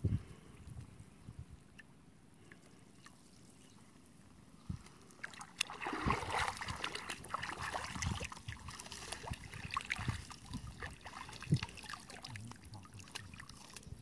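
Water splashing and trickling: a thump at the very start, a few quieter seconds, then busier, louder splashing with many small clicks from about five seconds in.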